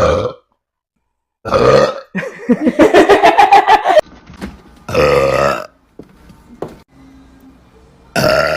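A young woman burping loudly five times. One long, croaking burp runs about two seconds in the middle, with a rapid rattle and a pitch that rises and then falls. The others are short.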